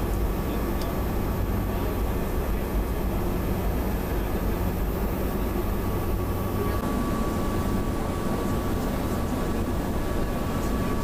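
Steady cabin noise inside an E-3A AWACS aircraft in flight: a continuous engine and airflow drone with a faint steady whine above it.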